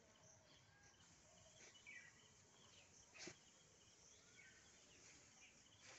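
Near silence: faint outdoor background with a few short bird chirps and one faint click about three seconds in.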